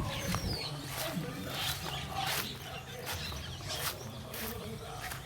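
Farmyard birds chirping, with repeated short rustling or scratching sounds.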